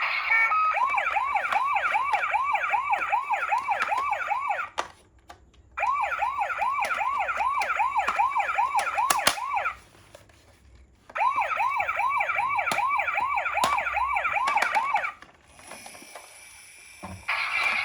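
Toy ambulance minicar's electronic siren sounding in three bursts of about four seconds, each a fast rising whoop repeated about three times a second over a steady high tone, with short breaks between. A different steady electronic tone starts just before the end.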